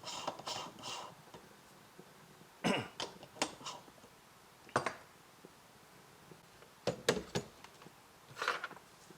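A series of short clinks and scrapes as metal espresso prep tools are handled: a distribution tool and a dosing funnel worked on the portafilter full of ground coffee.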